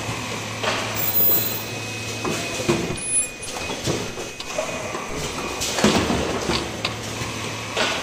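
Automated cup-mask (disposable respirator) machine running. Pneumatic cylinders clack and vent air in short hissing bursts about every two seconds, over a steady low motor hum.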